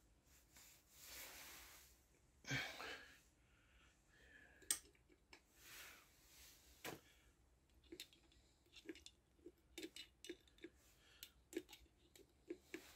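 Faint, irregular clicking of a hand-pump oil can being worked, about two clicks a second in the second half, as it squirts engine oil onto the camshaft bearings. A few soft rustles and breaths come before it.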